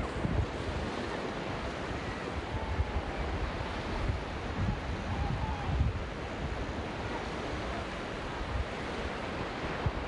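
Ocean surf breaking and washing up a sandy beach, a steady rush of waves. Wind buffets the microphone in low rumbling gusts, strongest around four to six seconds in.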